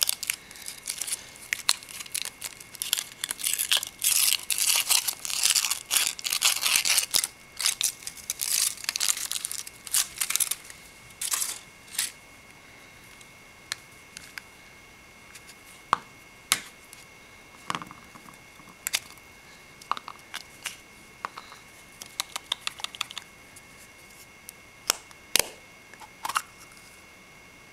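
Foil wrapper of a Yowie chocolate crinkling and tearing as it is unwrapped, dense for about twelve seconds. After that come scattered small clicks and crinkles from handling the chocolate and its packaging.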